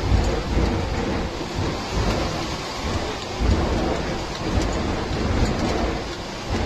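Seawater rushing and drumming against a Beriev Be-200 amphibian's hull and scoops as it skims the sea to fill its water tanks, a loud, uneven rumbling roar heard from inside the cockpit.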